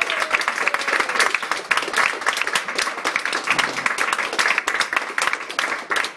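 Small club audience applauding, a dense patter of hand claps.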